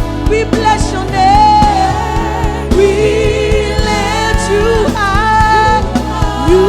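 Live gospel worship music: voices singing a melody over a band with steady low notes and a regular drum beat.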